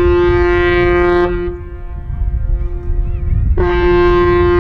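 Ship's horn of a car ferry sounding long steady blasts on one pitch: the first cuts off about a second in, and a second blast starts near the end, over a low rumble.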